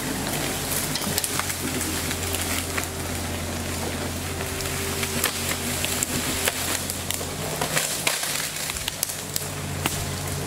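An engine idling with a steady low hum, with crackling footsteps and snapping twigs on dry leaf litter.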